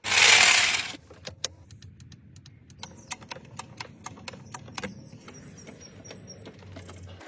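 A loud rushing whoosh for about a second, then scattered light clicks and metallic taps, several a second, over a faint low hum.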